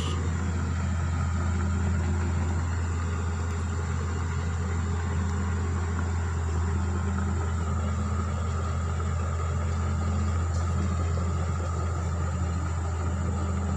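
Bulldozer's diesel engine running steadily, a constant low drone with no revving while the machine smooths the road surface.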